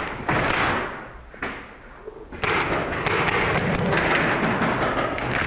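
Magfed paintball marker firing a string of shots, thumps that come in a short group, then a lull of about a second, then a rapid run through the second half.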